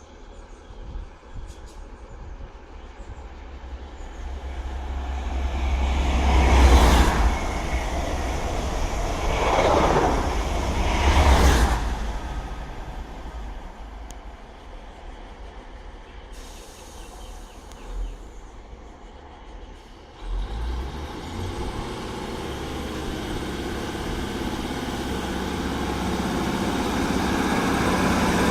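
A Class 156 diesel multiple unit rolls through the station with rail and brake noise, which swells loudly three times through the middle. After a quieter spell, its diesel engines open up abruptly about two-thirds of the way in, and the engine sound builds steadily louder to the end.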